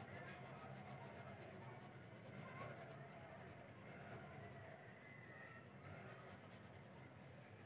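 Faint scratching of a colour pencil shading back and forth on paper in quick, repeated strokes.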